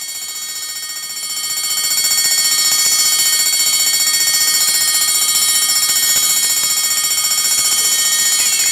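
Fire alarm bell ringing continuously, a rapid pulsing ring of several high tones that gets louder about two seconds in.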